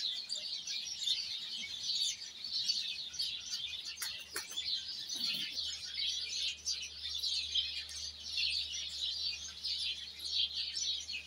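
A dense, steady chorus of many small birds chirping, high and unbroken, with no peacock calls among it.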